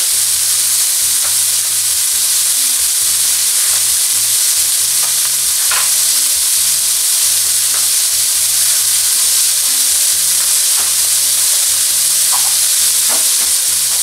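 Diced garlic, onion, carrot and red bell pepper sizzling steadily in hot oil in a frying pan, with a few faint pops now and then.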